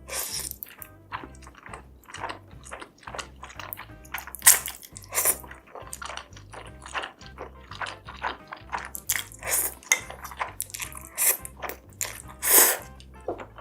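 Close-miked eating: crisp bites and chewing with a run of crackly crunches, two of them loudest, about four and a half seconds in and near the end. Background music with a low bass line plays underneath.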